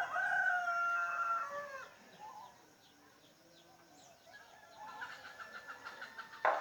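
A rooster crowing once, a long held call that drops away at the end. Near the end comes a run of quick repeated notes, then a sharp knock.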